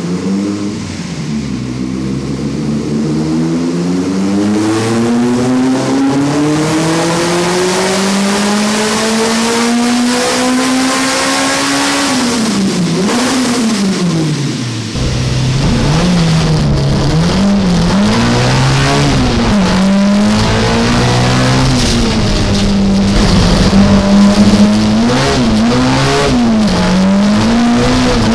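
Race car engine under load on a chassis dynamometer during a tuning pull: the revs climb steadily for about ten seconds, then drop away. From about halfway, the same engine is heard from inside the cabin at speed on a track, revs rising and falling sharply with quick gear changes.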